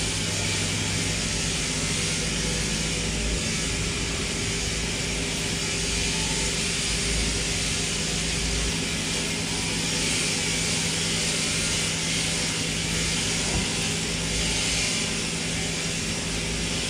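Sheep-shearing plant and handpiece running steadily: a continuous mechanical hum with a hiss above it and no breaks.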